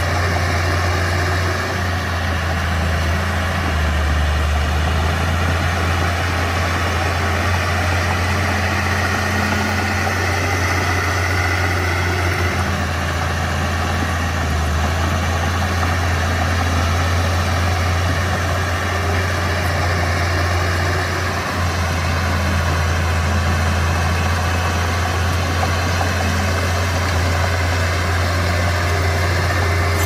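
Komatsu D31P bulldozer's diesel engine running steadily with a deep, even hum.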